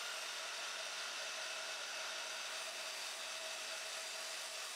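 Steady, even hiss with a faint steady hum and no distinct events: background noise.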